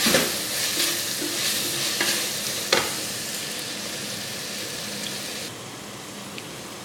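Chicken, carrots and capsicum frying in masala over high heat, sizzling steadily while a spatula stirs them and knocks against the pan a few times. The sizzling quietens a little about five and a half seconds in.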